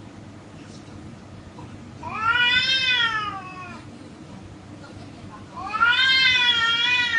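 Domestic cat yowling twice, each a long drawn-out call of about two seconds that rises and then sags in pitch. The first comes about two seconds in and the second near the end. These are threat yowls of a cat squaring off against another cat.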